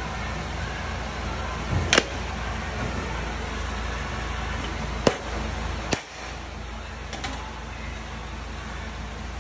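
Sharp metal knocks from the sleeve installation plate being handled against an aluminum Ford Coyote engine block, heard over steady shop noise. There is one about two seconds in, two more around five and six seconds, and a fainter one a little after seven.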